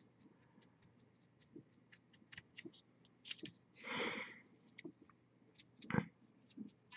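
Faint, scattered clicks and small handling taps from hand-painting a miniature at a desk, with a short hiss about four seconds in and one soft knock about six seconds in.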